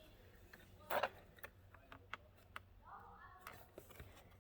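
Faint, scattered clicks and taps of hand tools (an Allen key and pliers) working the bolts behind a car's steering wheel.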